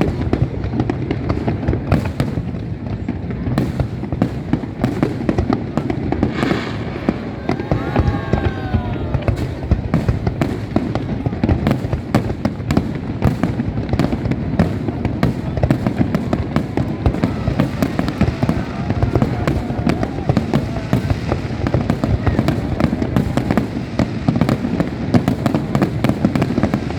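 Aerial fireworks going off in rapid succession: a continuous run of bangs and crackles over a low rumble, with a few whistling glides about seven to nine seconds in.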